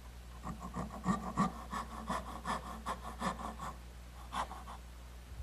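Small dovetail saw cutting an angled shoulder on a wooden tenon: quick, regular back-and-forth strokes, about three a second, which stop a little under four seconds in, followed by two more strokes after a short pause.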